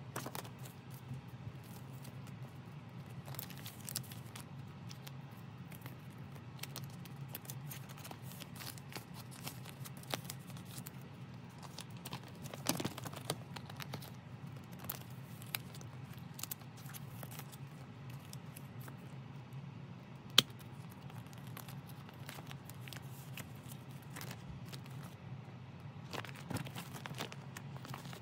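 Clear plastic binder sleeves crinkling and rustling as photocards and prints are slid into the pockets and pages are turned, with scattered light clicks and taps and one sharper tap about two-thirds of the way through. A low steady hum runs underneath.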